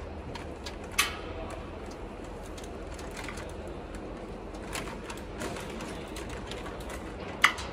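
A cable, the camera's USB cable, being worked loose and pulled out along the laser cutter's cable drag chain: light rattling and ticking over a steady low hum, with two sharp clicks, about a second in and near the end.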